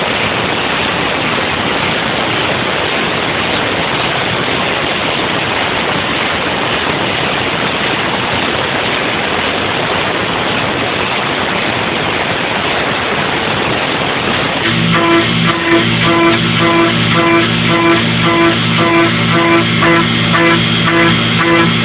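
Haas VF2 CNC mill running a trochoidal milling cut, heard as a steady, even hiss. Guitar music comes in about fifteen seconds in and plays over it.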